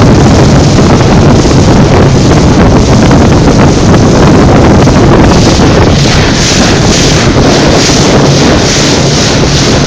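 Heavy wind buffeting the microphone over the steady hum of a Selva 115 Narwhal outboard motor and water rushing past the hull of a boat under way.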